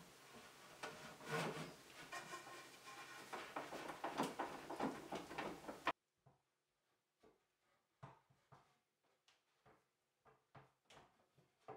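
Wooden lathe-frame rail being handled and fitted to the mortised post: scattered light knocks and rubbing of wood on wood. About halfway through, the background hiss drops out suddenly and the separate knocks stand apart.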